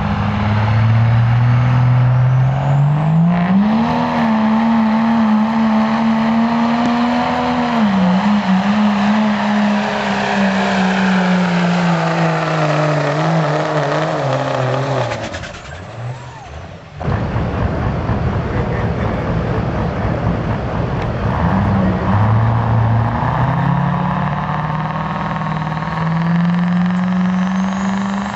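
Diesel pickup engine at full throttle pulling a weight-transfer sled: its pitch climbs over the first few seconds, holds, then sinks slowly as the growing load drags the revs down. The sound drops out briefly past the middle, then the diesel revs up again with its pitch rising steadily toward the end.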